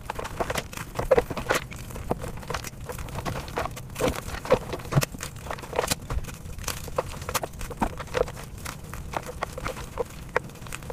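Blocks of dyed gym chalk being crushed and crumbled by hand: irregular dry crunches and crackles as the chalk breaks apart and crumbs fall.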